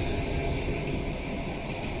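Train running along the rails: a steady low rumble of the wheels and carriages.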